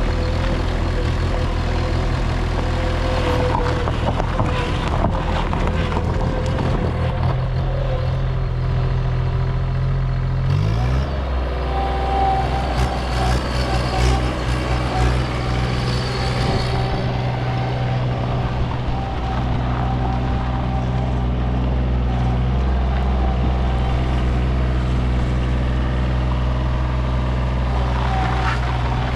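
Bobcat S70 skid steer's small diesel engine running steadily, dropping to a lower speed about ten seconds in. After the drop a steady higher whine runs alongside the engine, with a few clanks.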